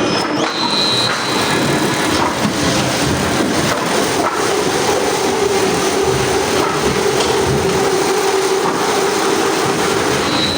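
Heavy machinery running steadily and loudly, with a steady hum that comes up in the middle and brief high squeals near the start and near the end.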